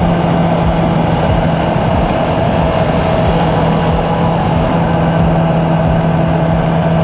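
2018 Honda CB650F's inline-four engine running at a steady speed while the motorcycle cruises, its note holding one even pitch, with wind and road noise rushing past.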